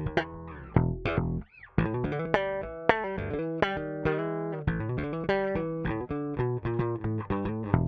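Triple D Pony short-scale electric bass playing a run of plucked notes, with a short break about a second and a half in.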